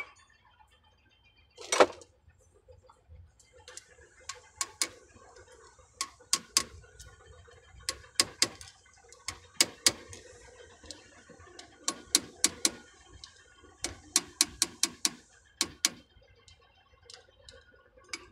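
Ratchet wrench clicking in short runs as a bolt on a truck's steering gear box is worked, after a single knock about two seconds in.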